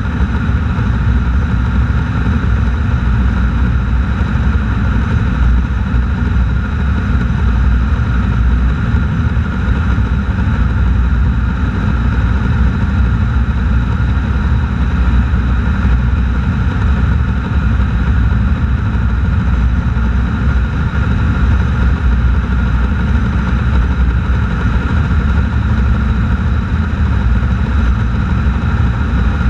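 Car driving at a steady cruising speed on a paved highway: even engine, tyre and wind noise with no shifts or changes in speed.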